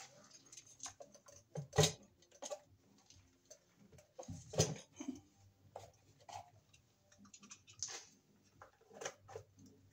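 Handling noise: scattered small clicks and knocks as a breaker and tools are picked up and handled, with two sharper knocks about two and four and a half seconds in.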